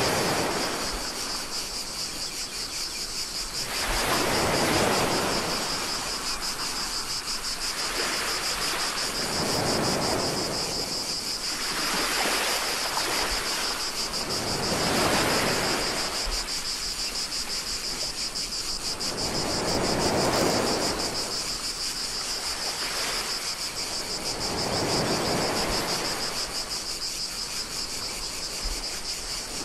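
Small waves washing onto the shore, a soft swell of surf every few seconds, under a steady high-pitched drone of cicadas from the shoreline pines.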